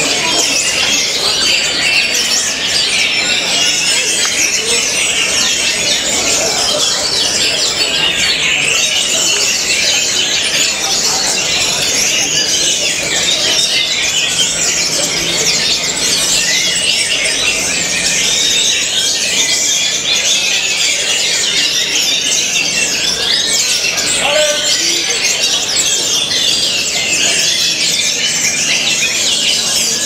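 Caged orange-headed thrushes singing a fast, continuous, high-pitched song of quick varied phrases, without a break.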